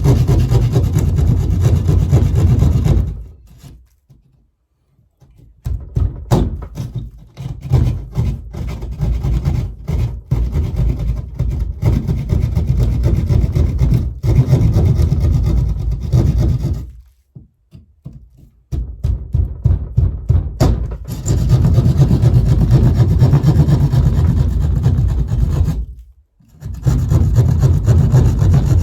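Hand plasterboard saw cutting through drywall with quick back-and-forth strokes, in long runs broken by a few short pauses.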